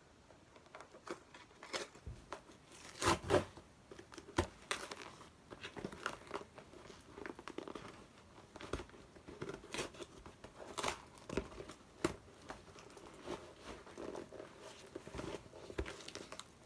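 Packaging being unwrapped by hand around a die-cast model bus: crinkling, tearing and rustling with scattered clicks and knocks, loudest about three seconds in.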